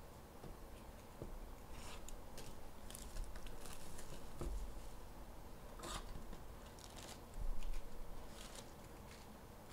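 A cardboard trading-card hobby box being handled and opened and its foil-wrapped packs pulled out: scattered rustles, scrapes and crinkles, with a heavier dull bump about seven and a half seconds in.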